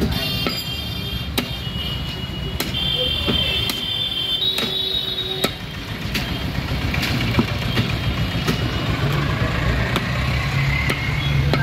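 A heavy butcher's cleaver chopping goat meat and bone on a wooden log chopping block, with sharp knocks at irregular intervals of about a second, over a steady low rumble of street traffic.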